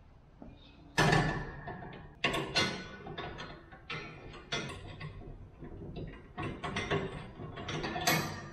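Steel sprayer boom clanking and rattling against the workbench and the sprayer's metal mounting frame as it is set down and fitted, a run of irregular knocks and scrapes. The loudest clank comes about a second in.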